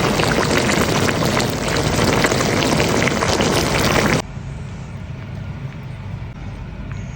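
Loud, dense crackling noise that cuts off abruptly about four seconds in, leaving a much quieter steady low hum.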